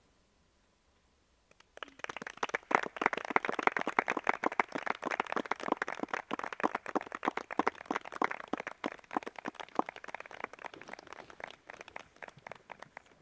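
A small audience applauding: many hands clapping at once, starting suddenly about two seconds in and thinning out near the end.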